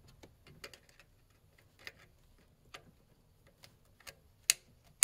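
Sparse light metallic clicks and ticks, with a sharper click about four and a half seconds in: needle-nose pliers gripping and working a spring-band hose clamp off a coolant bypass valve hose.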